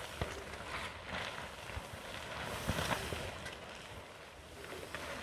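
Large sheet of polyethylene greenhouse film rustling and flapping in the wind, swelling and fading in gusts, with wind buffeting the microphone.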